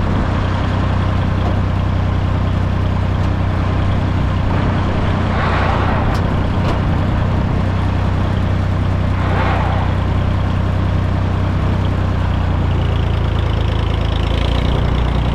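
The diesel engine of an International 454 tractor running steadily, with two brief rushing noises about five and nine seconds in.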